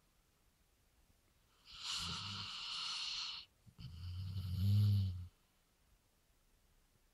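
A sleeping Weimaraner snoring: after a quiet start, a long hissing breath, a short pause, then a louder, low-pitched snore, before it goes quiet again.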